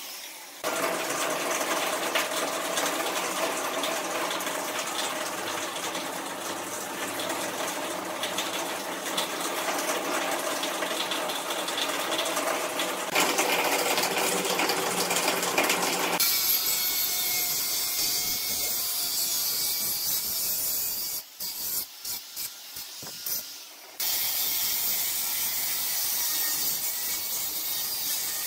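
Workshop metalworking noise in several edited pieces: a dense, steady machine noise for the first half, then a thinner hiss with a few clicks. Near the end comes a steady hiss from an angle grinder's cutting disc cutting through galvanized square steel tube.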